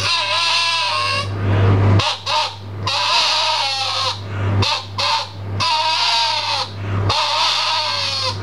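A cut piece of burst rubber balloon, blown through and stretched at the lips like a reed, squealing in wavering, wailing cries that sound like a crying baby, several cries with short breaks between.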